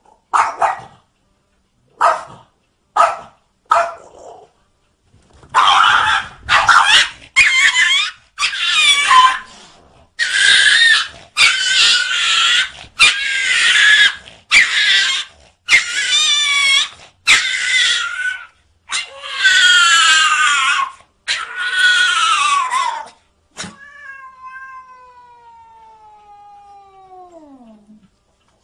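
Domestic cat caterwauling at a dog: a few short cries, then a long run of loud, drawn-out yowls of about a second each, ending in one long cry that falls steadily in pitch.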